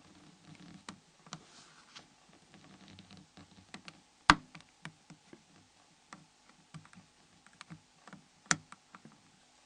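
Light clicking and ticking of a Nokia 5500 phone's cover being levered with a flat opening tool. Two much louder snaps come about four seconds in and again near the end, as the cover's catches unlock.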